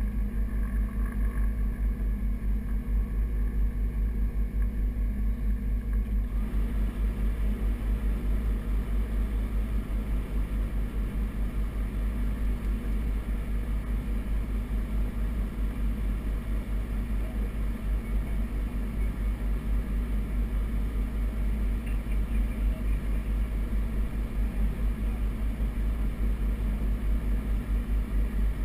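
Piper Navajo's twin piston engines running at low power while taxiing, heard inside the cockpit as a steady, low pulsing drone.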